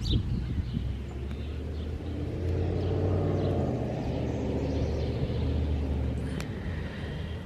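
A vehicle driving past: a low rumble that swells about two and a half seconds in and eases off near the end.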